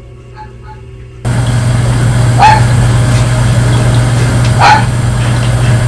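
Faint music for about a second, then the loud steady hum of a veterinary intensive-care ward, over which a dog gives two short barks about two seconds apart.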